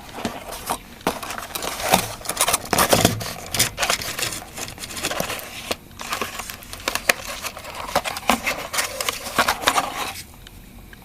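Packaging crinkling and rustling, with scattered clicks and knocks, as a small switching power supply is unpacked and handled. The handling stops suddenly about ten seconds in.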